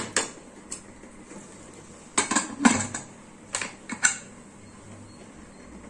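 Metal clanks and clinks from a pressure cooker as a ladle knocks against the pot, the lid is closed and the whistle weight is set on its vent. There are a few sharp knocks right at the start, a cluster about two to three seconds in, and two more near four seconds.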